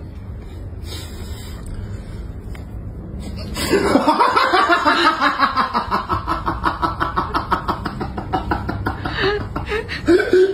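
A person laughing hard, a fast run of ha-ha-ha pulses that starts a little over a third of the way in and keeps going, over a low steady hum.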